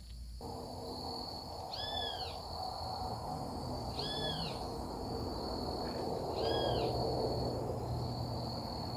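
A bird calling three times, about two seconds apart, each call a short arched whistle, over a steady high insect trill and the low rushing noise of river water.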